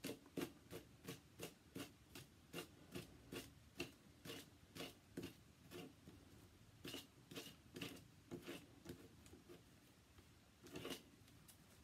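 Small comb drawn again and again through the teased-out inner strands of gutted 550 paracord, combing them into fluffy whiskers. A quick run of faint short strokes, about three a second, which thin out to a few scattered strokes in the second half.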